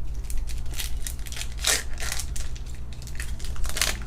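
A foil Pokémon booster pack wrapper crinkling and tearing as it is ripped open: a string of sharp crackles, the loudest about halfway in and again near the end.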